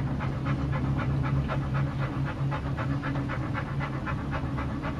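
Quick, even panting, about five breaths a second, over a steady low hum inside a moving cable-car gondola.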